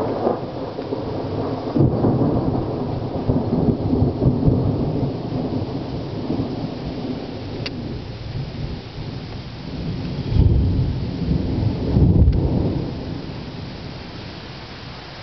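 Loud thunder rolling in long, low rumbles that swell about two seconds in and again around ten to twelve seconds in, then die away, over a steady hiss.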